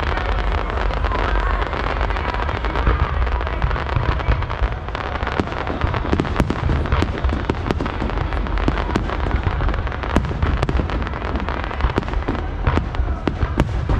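Aerial fireworks display: a continuous low rumble of shell bursts with rapid crackling, the sharp cracks coming thickest in the second half.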